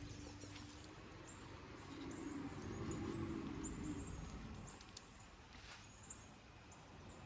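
A small bird chirping over and over in short, high chirps, with a faint low hum that swells and fades in the middle.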